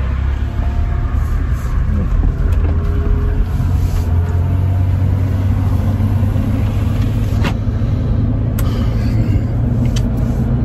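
Steady low rumble of engine and road noise inside a moving minivan's cabin, with a few brief sharp ticks in the second half.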